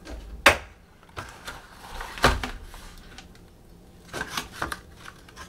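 A screwdriver-set box being opened and handled, with a few sharp clicks and knocks: a loud one about half a second in, another a couple of seconds in, and a quick run of smaller clicks near the end.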